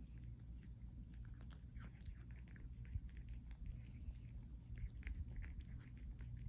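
A cat chewing and crunching dried catnip leaves, a scatter of small crisp clicks over a steady low hum.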